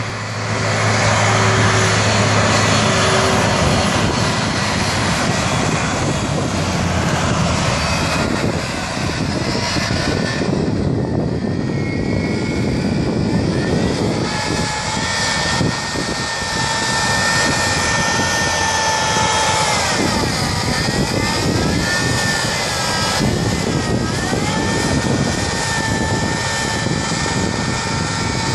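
A crop-spraying aircraft's engine drones steadily against heavy wind noise. Its pitch slides down and back up several times as the plane passes close by.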